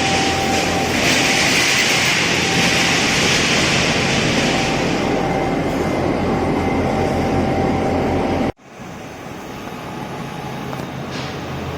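Factory machinery running: a steady loud hum and hiss with a steady whine, cutting off suddenly about eight and a half seconds in, followed by quieter, steady background noise.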